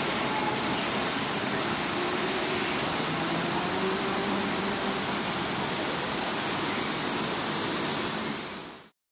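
Steady rushing of flowing water from the enclosure's water feature, fading out near the end.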